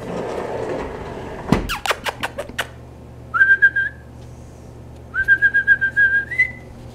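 A person whistling to call dogs: two warbling whistles on one high note, the second longer and stepping up at its end. They come after a quick run of sharp clicks.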